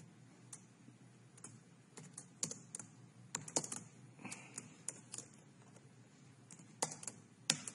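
Typing on a computer keyboard: faint, irregular key clicks in short runs, with two sharper strikes near the end.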